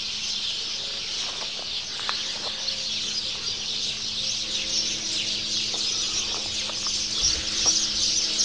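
Outdoor rural ambience of many birds chirping in a dense, steady chorus, with a few short calls and a faint steady low hum underneath.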